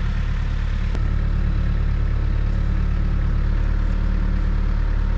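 An engine running steadily at idle, a low even drone, with a single sharp click about a second in.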